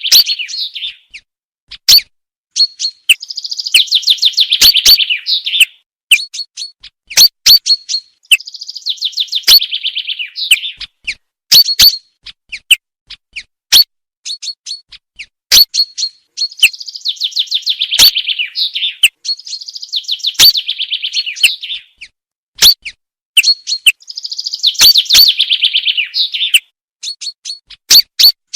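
Common chaffinch song: a falling trill of rapid notes about two to three seconds long that ends in a flourish, repeated about six times. Between the songs come short, sharp, loud single calls, the chaffinch's "pink" call.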